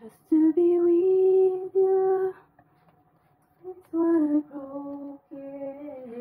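A woman humming a slow tune without words, in long held notes in two phrases with a short pause between them.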